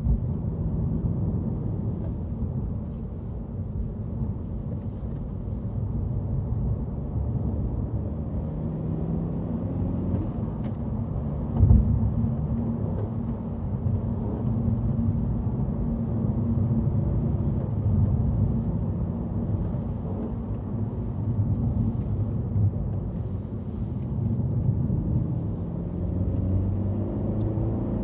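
Tuned Honda Civic hatchback's 1.5-litre turbocharged four-cylinder (L15C) engine under load, its pitch rising and falling as the car is driven hard through the gears, over a heavy low rumble. A brief loud thump about twelve seconds in.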